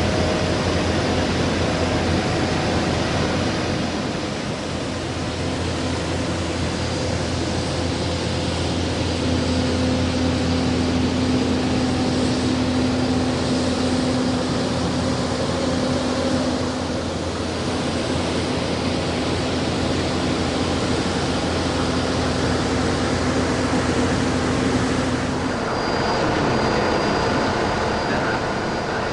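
Steady machinery drone with a low hum, from ground-support equipment running beside a parked airliner. A higher steady whine joins near the end.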